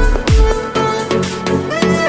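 Background electronic music: a deep bass kick falling in pitch, then held bass and synth notes.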